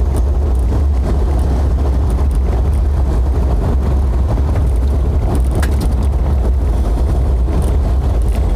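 Jeep driving, its road and engine noise a steady low rumble.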